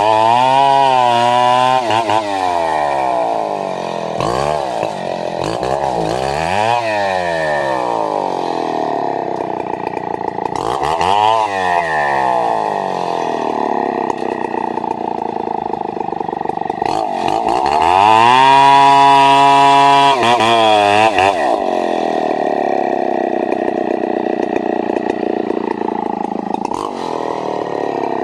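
Two-stroke chainsaw running continuously, revved up and eased off several times, held longest at high revs about two-thirds of the way through.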